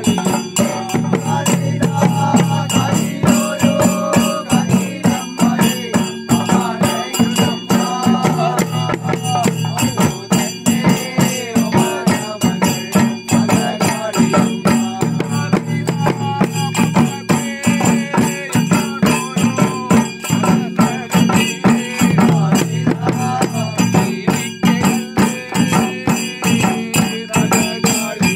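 Men chanting a Theyyam thottam, a ritual invocation song, over fast, continuous chenda drumming struck with sticks, with ringing metallic cymbals.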